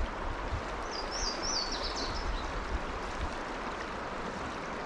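Steady rush of a trout stream's riffle. A short run of high, quick bird notes comes about a second in.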